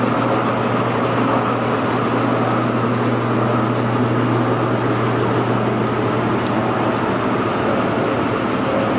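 Large Stanko engine lathe running steadily: an even mechanical hum of motor and gearing with a constant low drone.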